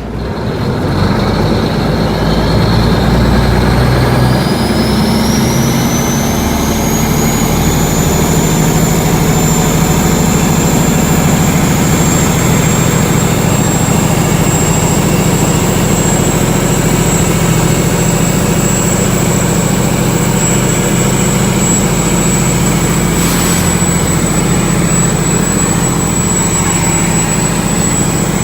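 Canal boat's engine running hard under way: a steady low engine drone with a high whine that climbs in pitch over the first several seconds as the engine picks up, then holds steady.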